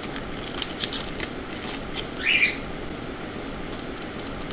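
A small paper sachet of vanillin handled and torn open by hand: a run of light crackles, then a short, louder rustle a little after two seconds, over a steady hiss.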